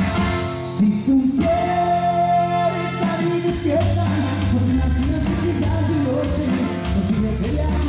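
Live norteño-style band playing with a lead singer: button accordion, 12-string bajo sexto, bass and drums. About a second and a half in, the drums and bass drop back under a long held note, and the full band comes back in about three seconds in.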